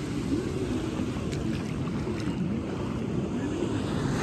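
Steady outdoor background noise: a low rumble with faint voices in the distance.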